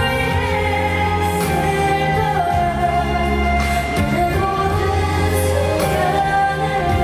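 A woman singing a slow, held melody into a microphone over amplified backing music.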